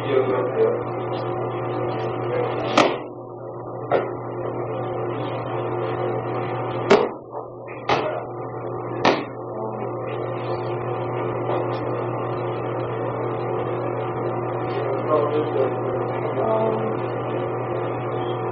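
Five sharp thumps between about 3 and 9 seconds in, bodies slapping down onto a martial-arts training mat, over a steady low hum.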